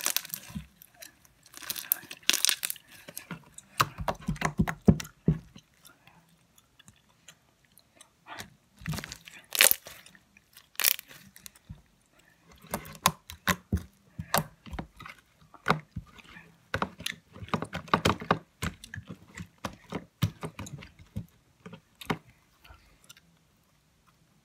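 Homemade slime squeezed and kneaded between the hands, making irregular wet clicks, pops and squelches in clusters with short pauses.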